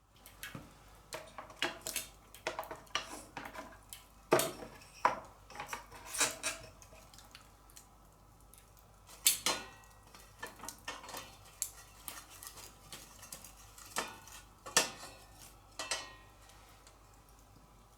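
Irregular clinks and knocks of dishes and metal utensils being handled, some strikes ringing briefly.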